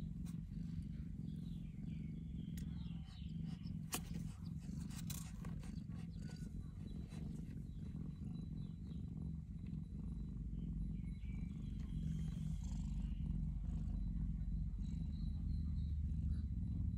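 Mother cat purring steadily while nursing her newborn kittens, a little louder in the second half, with a few faint high squeaks and a couple of small clicks in the first seconds.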